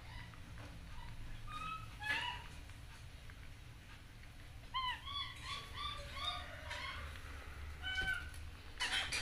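Short, high chirping animal calls: a few single ones at first, a quick run of five or six about five seconds in, and a few more near the end, over a faint low hum.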